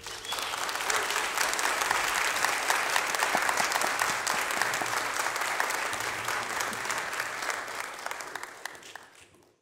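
Audience applauding, the clapping rising quickly at the start and fading away over the last two seconds.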